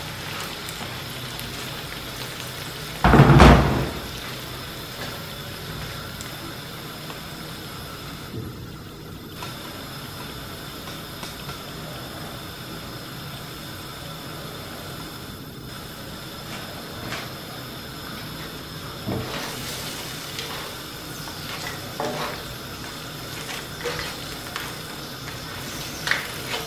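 Crab pieces sizzling steadily in oil and freshly added water in a wok. There is one loud thump about three seconds in, and a wooden spatula scrapes and knocks against the wok a few times near the end.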